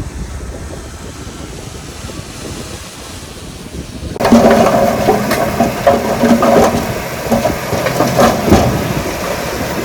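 Heavy earthmoving machine engine. A low rumble changes abruptly about four seconds in to a much louder engine drone with intermittent metallic clanks.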